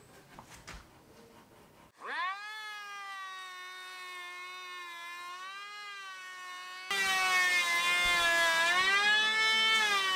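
Cordless electric hand planer spinning up with a quick rising whine about two seconds in, then running with a steady whine. About five seconds later it gets much louder and rougher as it cuts along the edge of a laminated skirting board, its pitch sagging slightly under load.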